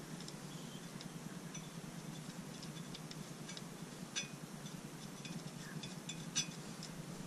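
Light metallic clicks and clinks as bolts are threaded by hand into the oil filter cover of a Kawasaki KFX 450R engine, scattered and irregular, the sharpest about four seconds in and again about six seconds in, over a faint low hum.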